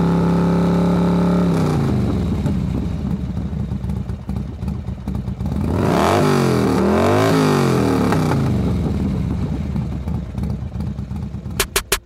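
Motorcycle engine revving, used as an intro sound effect. It holds a high steady note, drops away after about a second and a half, swells again with its pitch sweeping up and down around the middle, then fades. A few sharp clicks come near the end.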